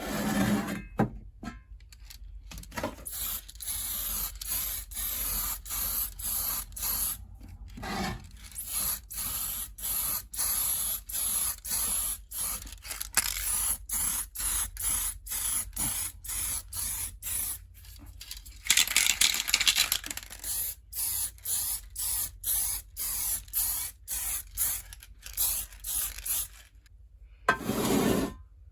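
Aerosol spray paint can hissing in many short bursts, roughly two a second, with one longer continuous spray about two-thirds of the way through.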